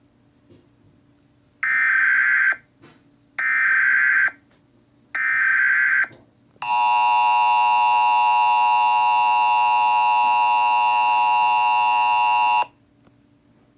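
Emergency Alert System header: three short bursts of digital data tones about a second and a half apart, then the steady two-tone EAS attention signal held for about six seconds before cutting off abruptly.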